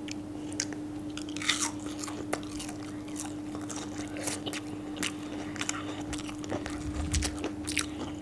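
Close-up crunchy biting and chewing of breaded fried fish sticks, with scattered crisp crackles of the crust. A faint steady hum runs underneath.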